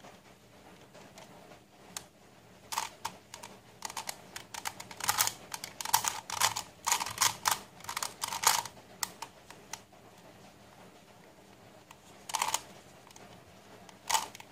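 Face-turning octahedron puzzle being turned by hand: dense runs of quick plastic clicks and clacks for several seconds as the faces turn, then two short bursts of turns near the end.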